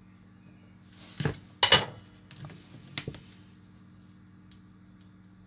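A few sharp clinks and knocks of hard objects on the bench, the loudest just under two seconds in, as the soldering iron is put back in its stand and the LED circuit board is picked up. A faint steady hum runs underneath.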